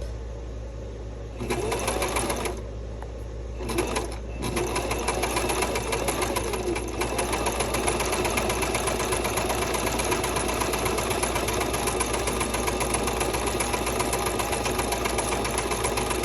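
Domestic zig-zag sewing machine stitching binding trim: two short bursts about two and four seconds in, then running steadily at an even speed.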